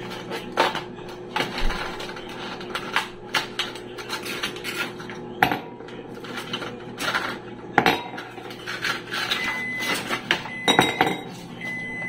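Ice cubes being pushed out of a silicone ice cube tray and dropping into a drinking glass: a run of clinks and knocks at irregular intervals. There are a few short high beeps near the end.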